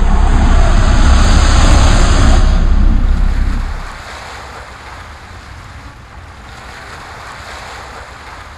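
Surf breaking and washing up a pebble beach. The first few seconds are much louder, with a heavy low rumble like wind buffeting the microphone, which drops away about four seconds in, leaving the steadier hiss of the waves.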